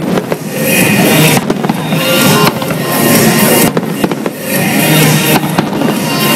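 Fireworks shells bursting in a loud, dense, continuous barrage, with music playing over them throughout.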